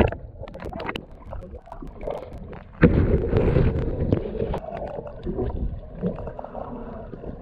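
Muffled water sloshing and gurgling around a camera held half in and half under the sea, getting louder and busier about three seconds in.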